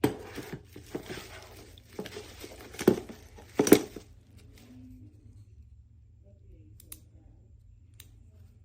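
Rustling and crinkling handling noise with several sharp knocks, the loudest two about three and four seconds in, then it goes quiet.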